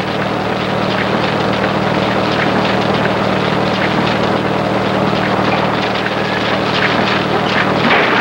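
Loud, steady mechanical drone with a continuous clatter of wood, like a machine tearing at a house while boards and laths break and fall.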